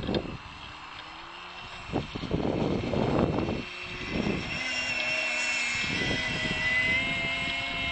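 OPS 3.5 glow engine with a silenced pipe, driving a model offshore powerboat at speed: a high, steady whine that grows louder about halfway through as the boat comes close. Wind buffets the microphone in gusts during the first half.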